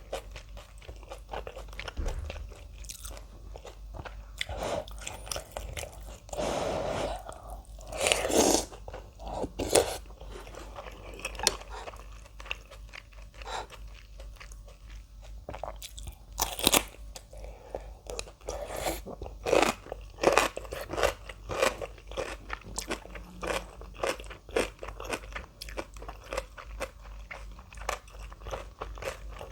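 Close-miked eating: a person biting and chewing crunchy kimchi with ramen, many sharp irregular crunches, with two longer noisier stretches about seven and eight seconds in.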